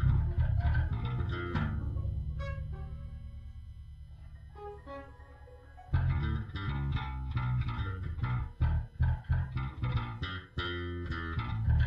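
Experimental instrumental music on tapped touch-style guitar, with busy plucked notes over deep bass lines. About a second and a half in, the playing thins to a held low note that fades away under a few sparse high notes, and dense playing comes back suddenly about six seconds in.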